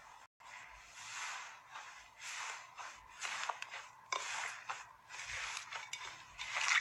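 Slime being squeezed and worked: a run of wet, crackling swells about once a second, with small sharp pops and clicks among them.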